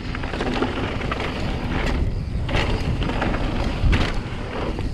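Mountain bike descending a steep, loose, rocky dirt trail: a steady rumble of wind and tyres on dirt, broken by sharp clatters as the bike hits rocks, the loudest a little before four seconds in.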